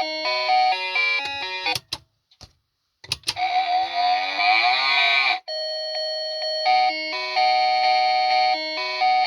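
Cow-themed novelty alarm clock playing a beeping electronic tune, which breaks off with a couple of clicks. After about a second of silence it gives a recorded cow moo lasting about two seconds, and then the tune starts again.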